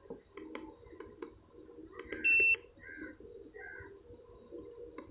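Handheld satellite finder (Premium HD Model 8900) giving one short, loud, steady high-pitched beep about two seconds in, over light clicks of its rubber keypad being pressed. Faint bird chirps sound in the background.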